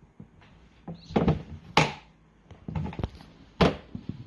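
A handful of sharp knocks and thumps, about four, from modelling clay play with hands and tools on a tabletop.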